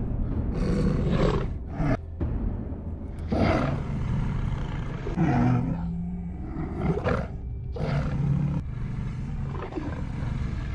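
Wolves growling again and again in short bursts a second or two apart, over a low steady drone of film score.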